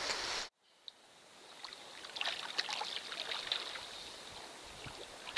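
Shallow stream water running and trickling, with many small splashes and ticks. The sound cuts out abruptly about half a second in and then fades back up.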